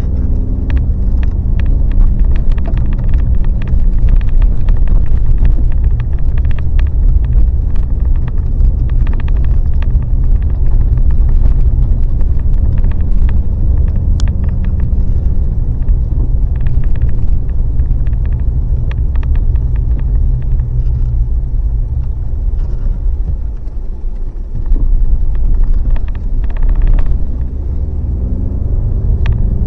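A motor vehicle driving: a steady low rumble of engine and road noise, with small scattered ticks and rattles.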